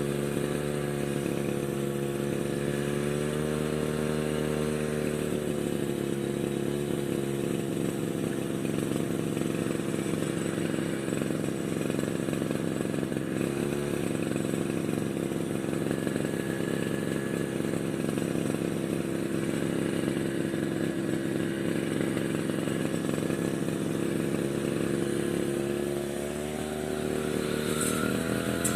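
Brush cutter's small petrol engine running steadily at a high speed, its pitch easing down a little about five seconds in. Near the end it dips briefly and then rises in pitch again as it is revved up.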